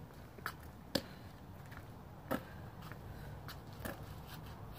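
A basketball bouncing on a concrete driveway: four separate, unevenly spaced thuds, the second and third the loudest.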